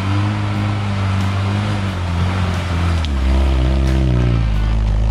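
Land Rover Series 1 engine pulling steadily up a muddy woodland climb, its note shifting in pitch partway through and growing louder as the vehicle comes close about three seconds in.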